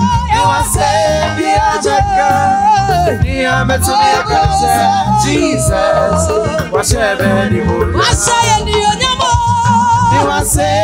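A woman singing into a microphone over a live band, with conga drums in the accompaniment; the sung line holds and bends long notes over a steady, busy beat.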